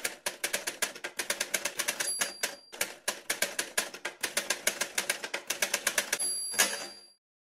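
Manual typewriter keys striking in quick succession, about seven clacks a second, with a bell-like ding at the end of each typed line, about two seconds in and again near the end.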